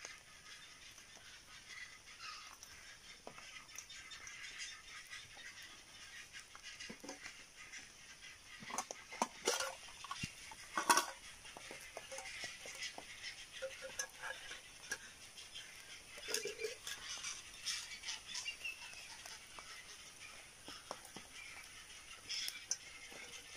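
Metal camping pots, lids and a cup clinking and knocking as they are handled beside a small wood fire, a few sharp clanks loudest about nine and eleven seconds in, over a faint crackle of the fire.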